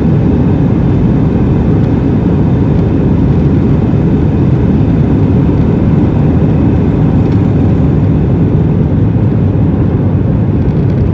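An Airbus A320 on its takeoff roll, heard from inside the cabin. The engines are at takeoff power and the wheels rumble on the runway, making a steady, loud, deep noise.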